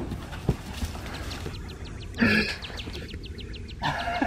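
A dog close by, moving and panting around a person lying on the grass near the end, with a short loud sound about two seconds in. A bird chirps rapidly in high notes underneath.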